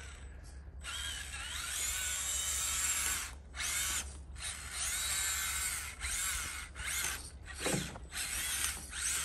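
Electric drive motor and geared drivetrain of a Losi Night Crawler SE, a 1/10-scale RC rock crawler, whining as it crawls. The whine rises and falls in pitch with the throttle and stops briefly several times, where the throttle is let off.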